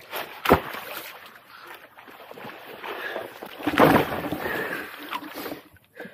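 Shallow rock-pool water splashing and sloshing as a seaweed-covered rock is handled and lifted out of the pool. There is a sharp knock about half a second in, and the loudest splash comes about four seconds in.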